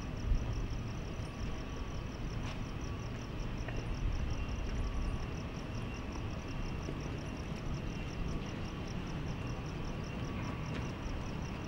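Night ambience: a cricket chirping steadily about three to four times a second over a low, steady background rumble, with a single light knock just after the start.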